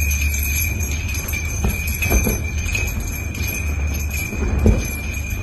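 Crystal drops of a ceiling chandelier clinking and tinkling without pause as it sways from earthquake shaking, over a steady low rumble.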